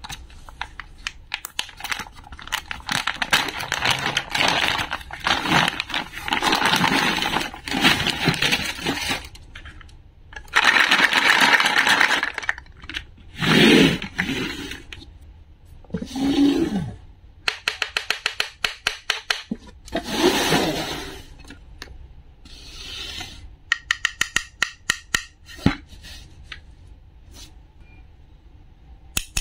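Clear plastic zip-seal bag crinkling and rustling as it is opened and handled, followed by runs of quick clicks and taps as plastic and wooden toy food pieces and a wooden board are handled and set down.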